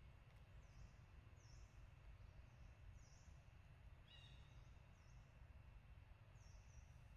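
Near silence: faint outdoor ambience with small high chirps repeating about once a second and a single short call about four seconds in.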